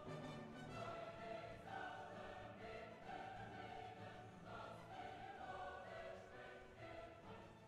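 Quiet background music: a choir singing long held notes.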